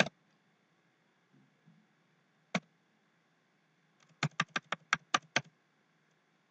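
Computer keyboard keystrokes deleting text: a single key tap at the start and another about two and a half seconds in, then a quick run of about nine taps a little over four seconds in.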